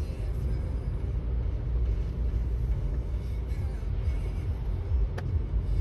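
Road noise inside a moving car's cabin: a steady low rumble of tyres and engine, with a single sharp click about five seconds in.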